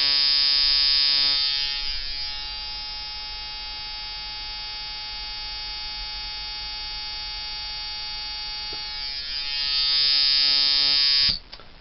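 Brass-framed coil tattoo liner machine with Wesley Verity coils buzzing steadily at 4 volts, set to hit with no give. It drops quieter a second or two in, comes back up near the end, then cuts off suddenly.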